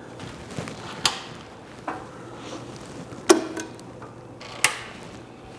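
Four light metallic clicks, the third the loudest, as the choke cable is worked loose from the carburetor linkage on a 25 hp Robin engine.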